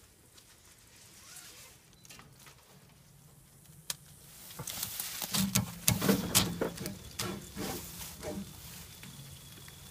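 Clicking and rattling of a ratchet tow strap and its hooks being handled and worked by hand. There is a single sharp click about four seconds in, then a run of loud, irregular clicks that dies down near the end.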